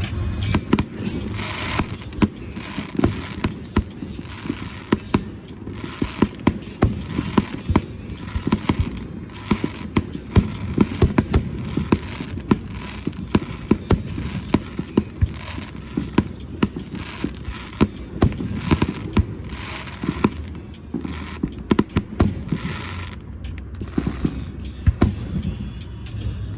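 Aerial fireworks bursting in quick succession: a dense run of bangs and crackling, several per second.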